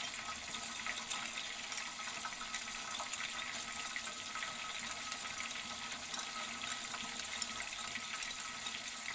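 Chicken wings deep-frying in hot oil: a steady sizzle with small scattered crackles.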